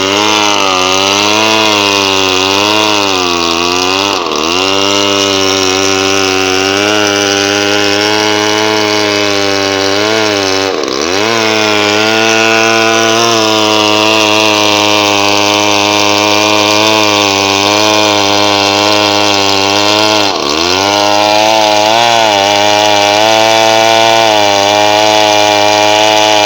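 Two-stroke chainsaw running at high revs while cutting into wood, its pitch wavering under load. The engine pitch dips sharply three times, about four, eleven and twenty seconds in, and climbs back each time.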